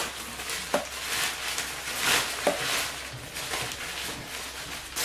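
Rustling and crinkling of plastic wrapping and a reusable fabric bag being pulled out of a box and unfolded by hand, in uneven swells, loudest about two seconds in.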